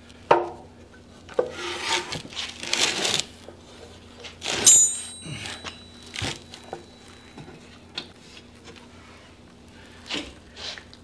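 Metal barber-chair footrest assembly being handled and turned over on a cardboard-covered bench: scrapes, rubs and knocks, with one louder metallic clank about halfway through that rings briefly.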